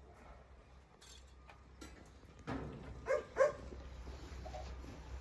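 A dog giving three short barks in quick succession, about halfway through.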